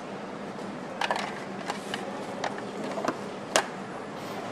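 Steady factory hum on a motorcycle assembly line, with a handful of sharp clicks and knocks from parts and tools being handled. The loudest knock comes about three and a half seconds in.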